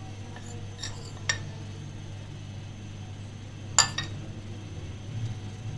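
A metal spoon clinking against a bowl and the cake tin: two light clicks about a second in and a louder clink near the end, over a low steady hum.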